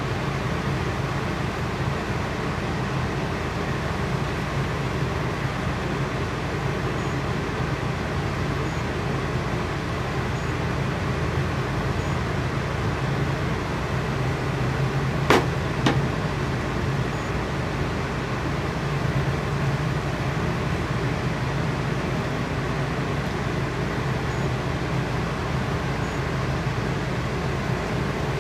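Steady mechanical hum with a constant noise underneath, broken past the halfway mark by two sharp clicks about half a second apart.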